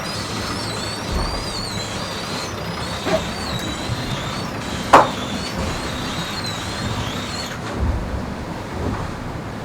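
IMOCA 60 racing yacht under sail, its hull rushing through the water with a steady rumble and a wavering high-pitched whine. A sharp knock comes about five seconds in, and a smaller one a couple of seconds earlier.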